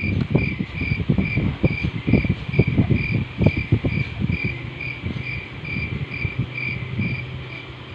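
A cricket chirping steadily, about two short chirps a second, stopping just before the end. Over it, the rustle and knock of a cardboard phone box, its tray and accessories being handled, loudest in the first few seconds and easing off after about five.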